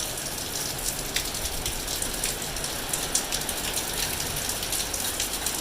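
Torrential rain: a steady hiss of a heavy downpour with scattered sharper drop strikes.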